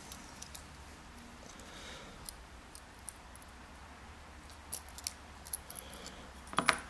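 Faint, scattered small clicks and taps of a lock cylinder's metal parts being handled during disassembly, coming more often in the second half, with a louder cluster of clicks near the end.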